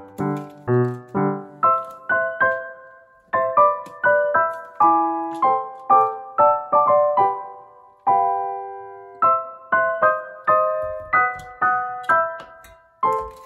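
Background piano-style keyboard music: a light melody of struck notes and chords, about two a second, with one chord held longer about two-thirds of the way through.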